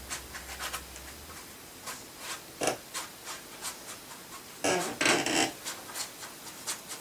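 Paintbrush rubbing and scratching across watercolour paper in a run of short strokes, with a louder, longer rasp about five seconds in.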